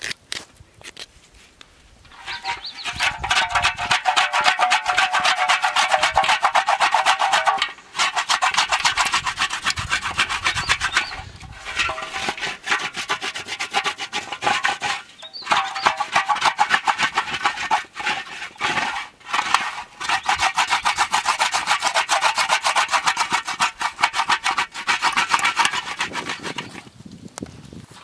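Knife blade scraping rapidly and hard against a crusty surface in long spells of fast strokes, with short breaks about 8, 11, 15 and 19 seconds in.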